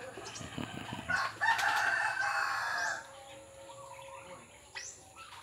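A rooster crows once, starting about a second in and lasting under two seconds.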